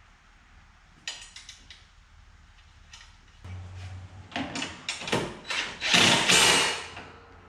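Cordless drill-driver run in several short bursts against a riding mower's steel frame while a mounting bracket is fitted, the longest and loudest burst near the end. Before it come a few light metal clicks from handling parts.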